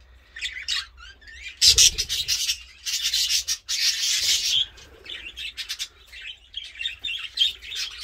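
Aviary budgerigars and zebra finches chirping and chattering in many short, high calls. Two loud bursts of rustling noise come through: a short one about two seconds in and a longer one from about three to four and a half seconds in.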